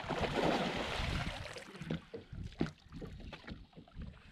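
Water splashing as a landing net holding a northern pike is dipped into the lake to release the fish, loudest in the first second or so. A few light knocks follow.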